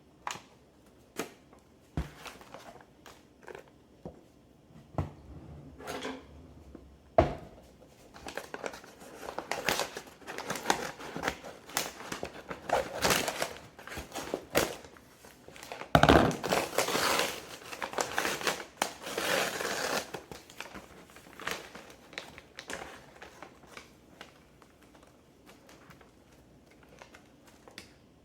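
Packaging wrap crinkling and rustling as a potted orchid is unwrapped and lifted from its shipping box by hand, with scattered knocks and handling noises; the crinkling is densest in the middle, with a sharp knock about seven seconds in and another about sixteen seconds in.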